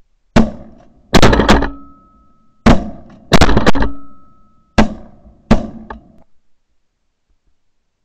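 Shotgun shots fired at flying ducks, several sharp blasts in quick clusters over about six seconds, each with a short trailing echo.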